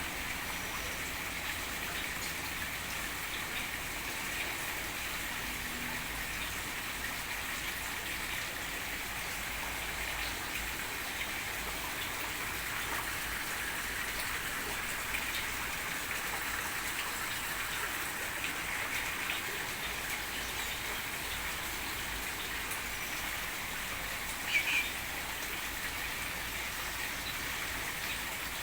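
Continuous dense twittering and chattering of many small birds in an aviary, with one louder short call about 24 seconds in.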